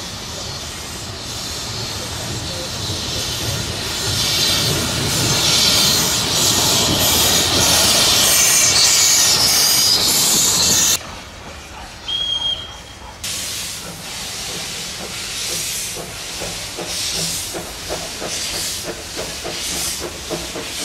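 Steam locomotive No. 705 passing close by, its steam hissing and growing louder. The sound cuts off suddenly about halfway through. Then a small steam tank locomotive draws into the station with a quieter, regular rhythmic beat.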